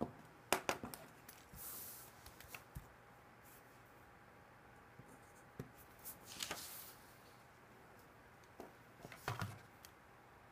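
Quiet room with a few scattered clicks and light knocks from a digital scale being handled: a cluster of clicks about half a second in, a single knock in the middle and more knocks near the end as the scale is lifted.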